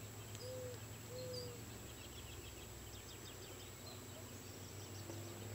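Quiet background: a low steady hum, with a few faint short calls in the first second or so and faint rapid chirping a little later.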